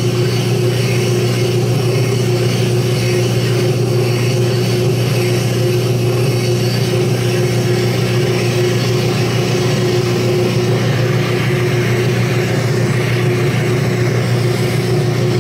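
Lathe running steadily, turning an engine eccentric inside its eccentric strap with valve lapping compound between them: a constant mechanical hum with a steady tone and an even hiss over it, the sound of the strap being lapped in to fit the eccentric.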